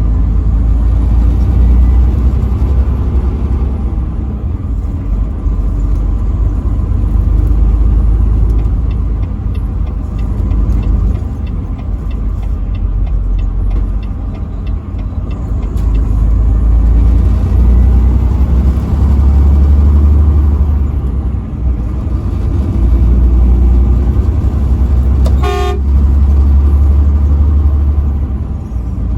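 Heavy, steady low rumble of a truck driving on the highway, swelling and easing, with one short truck horn blast about 25 seconds in.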